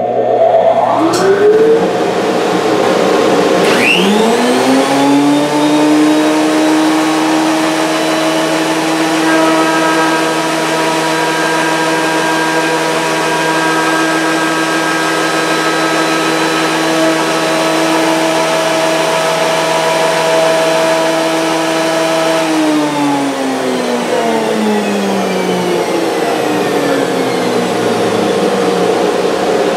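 A Delta 12-inch portable thickness planer and a 2-horsepower shop dust collector start up one after the other, near the start and about four seconds in, each rising in pitch as it spins up. Both then run loud and steady with a whine. About 22 seconds in, one motor winds down with falling pitch, and a motor spins up again at the very end.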